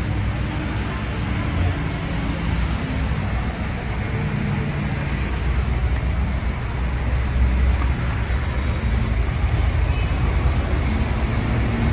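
City street traffic: motor vehicle engines running and passing, over a steady wash of road noise.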